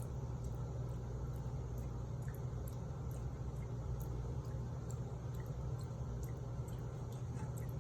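Tap water running steadily into a sink, with faint scattered drips and splashes.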